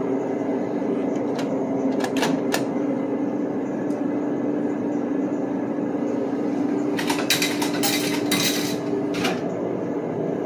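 Snack vending machine in use: a steady hum with scattered clicks, then about seven seconds in a short cluster of clattering as the machine vends a bag of chips into the bin.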